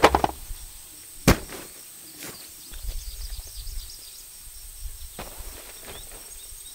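A packed bag thrown onto grassy dirt lands with a thud and a short clatter, followed a little over a second later by a single sharp click. After that come soft footsteps on grass and dirt.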